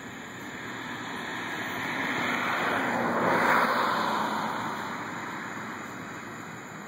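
A vehicle passing by: a noise that swells up, peaks about halfway through and fades away.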